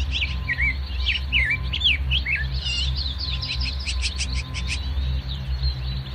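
Birds chirping in quick runs of short rising and falling calls, which stop about five seconds in, over a steady low rumble.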